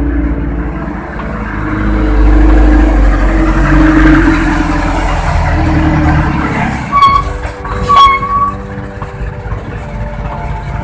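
Motor vehicle running close by: a loud, steady low rumble that swells for a few seconds, then two short high-pitched squeals about seven and eight seconds in.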